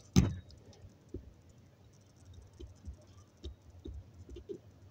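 Workshop handling noises around a drill press: one sharp knock just after the start, then light scattered clicks and taps.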